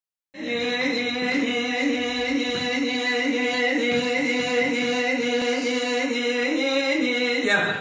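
A man singing unaccompanied in the Kurdish dengbêj style: one long held vocal phrase that wavers in pitch. It starts about a third of a second in and falls away just before the end.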